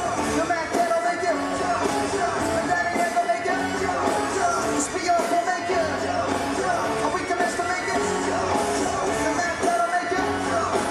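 Live rock band playing amplified through a PA, with a singer over electric guitar, drums and keyboard.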